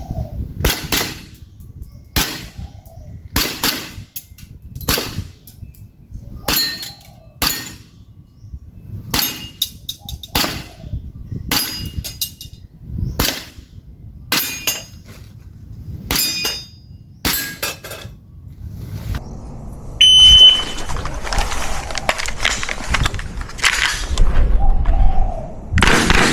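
Airsoft gun firing a string of about twenty single shots, often in quick pairs, many followed by the ringing clang of a steel target plate being hit. Near the end a short beep, then a stretch of rustling noise.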